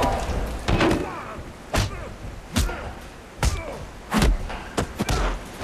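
Movie fistfight sound effects: a series of heavy punch impacts, about seven hard blows coming roughly every second, over a low steady rumble of falling water.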